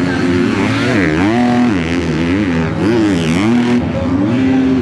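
Motocross race bike's four-stroke engine revving hard, its pitch dropping and climbing again several times as the throttle is closed and reopened around the track.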